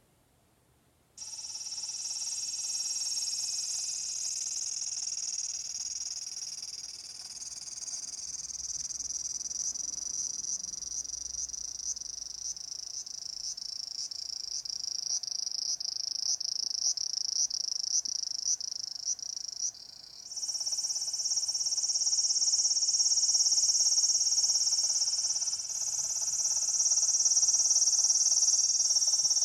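Recorded insect chorus played as an ambient sound effect: a dense, high buzzing with a regular chirp repeating about twice a second. About 20 s in it changes to a louder, denser chorus with a lower croaking layer like frogs.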